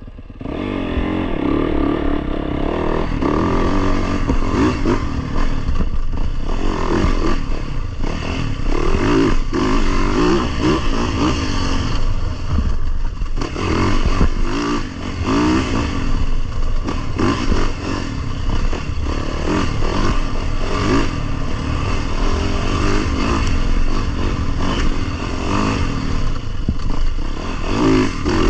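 Dirt bike engine revving up and dropping off again and again as the bike is ridden over a rough trail. It gets louder about a second in.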